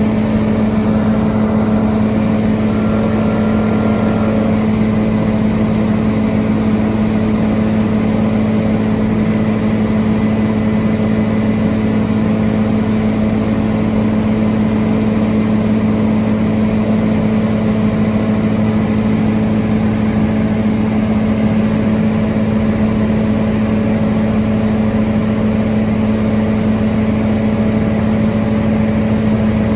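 Hitachi Zaxis 490 LCH excavator running its sheet pile driver, a loud steady drone with a strong even hum that does not change.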